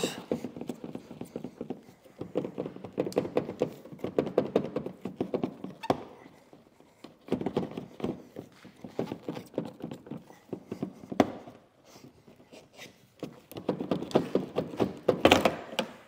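Plastic taillight housing of a 2020 Kia Sportage being rocked and worked out of its pocket in the body: quick runs of clicks and knocks in three spells, with short pauses between.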